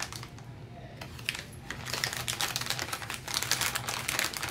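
Small plastic Lego pieces clicking against each other inside clear plastic bags as fingers rummage through them. A few scattered clicks at first, then a quick, dense run of light clicks from about two seconds in.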